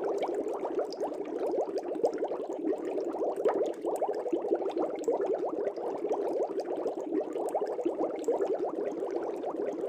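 Air bubbles streaming up through aquarium water: steady, dense bubbling made of many small quick bubbles.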